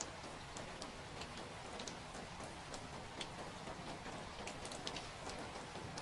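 Steady rain, with scattered drops ticking irregularly on a hard surface.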